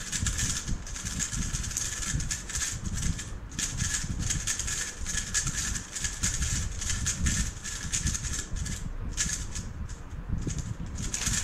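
A 3x3 speedcube being turned by hand: a quick, irregular run of light plastic clicks and clatters as the layers turn.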